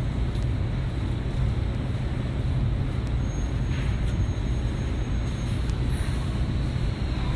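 Steady low rumble of bakery machinery running while bread is baked.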